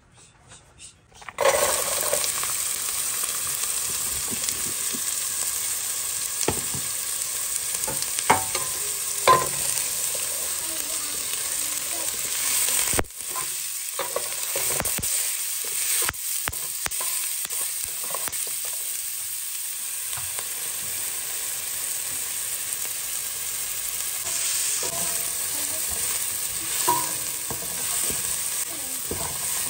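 Chopped red onions sizzling in hot oil in a nonstick pot, the steady sizzle starting suddenly about a second in. A spatula stirs and scrapes them, with a few sharp taps against the pot.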